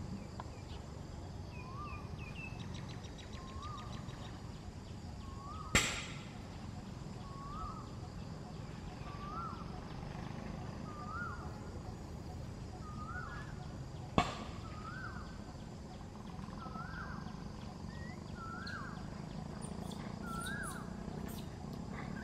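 An animal's short call repeats about once a second, each call rising and then dipping, over steady outdoor background noise. A brief run of rapid chirps comes a few seconds in, and two sharp knocks, the loudest sounds, come about six and fourteen seconds in.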